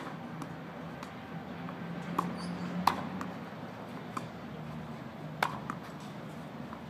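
Tennis balls being struck by rackets and bouncing on a clay court during a rally: sharp pops about once every second or so, two of them louder than the rest.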